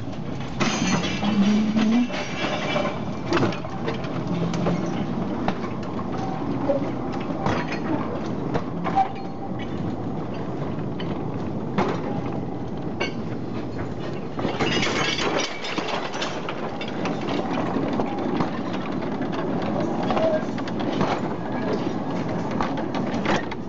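Narrow-gauge steam locomotive hauling a train of wooden wagons, the wheels rumbling and clicking over the rail joints, with two louder hissing bursts, about a second in and about fifteen seconds in. Near the end the rumble and clatter are those of riding on one of the moving wagons.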